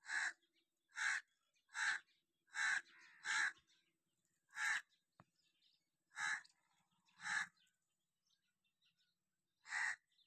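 A crow cawing over and over: about nine short caws at uneven intervals, with a longer gap after about seven seconds.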